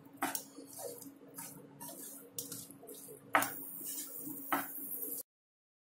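Wooden spatula stirring and tossing cooked rice in a nonstick pan: irregular scrapes and taps against the pan, the loudest a little past three seconds in and again about a second later, over a faint steady hum. The sound cuts off abruptly about five seconds in.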